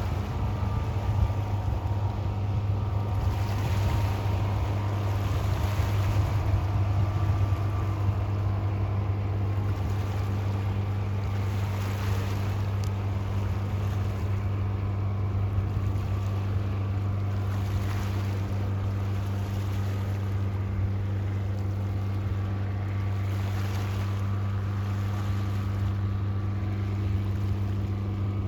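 Boat engine running steadily with a deep, even hum. Softer swells of waves wash in every few seconds under it.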